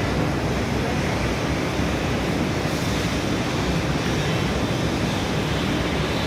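Steady, even rushing noise with no distinct strikes or tones.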